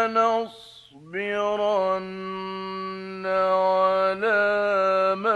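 A man reciting the Quran in the melodic mujawwad style, holding long, ornamented notes, with a brief pause for breath about half a second in before the voice comes back on a rising note.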